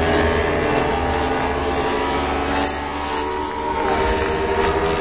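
MotoGP racing motorcycles' engines running as the bikes ride past, several engine notes overlapping; about four seconds in one note falls in pitch as a bike moves away.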